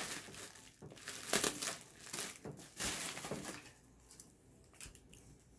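Bubble wrap crinkling and rustling in irregular handfuls as it is pulled and pressed around a sewing machine, dying away near the end.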